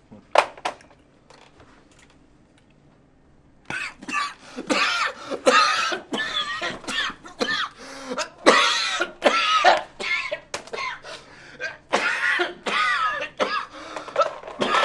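A man coughing in a long, continuous fit of harsh, loud coughs starting about four seconds in, after a couple of short sharp sounds about half a second in.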